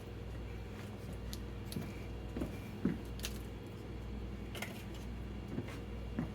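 Small kitchen handling noises as ranch dressing is put on a salad: a scattering of light clicks and taps, with a soft thud just under three seconds in, over a steady low hum.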